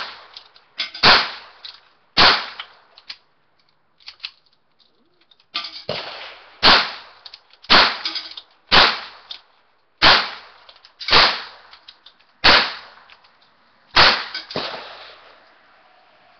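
A firearm fired about ten times at a steady pace of roughly one shot a second, with a pause of about three seconds after the first few shots. Each shot is sharp with a brief ringing tail, recorded through a phone's microphone.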